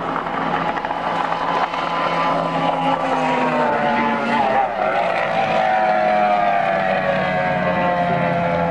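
Outboard-powered race boat running flat out past on the river, its high engine whine falling steadily in pitch as it goes by. A lower, steadier engine note runs underneath.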